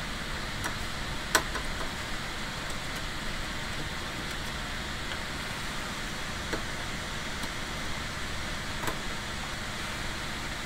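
Steady low background hiss with a few faint, brief clicks.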